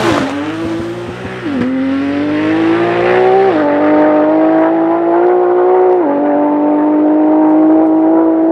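Nissan GT-R R35's twin-turbo V6 at full throttle on a drag-strip run, its pitch climbing through the gears. It upshifts several times, the pitch falling sharply at each shift, and the shifts come further apart as the car gains speed.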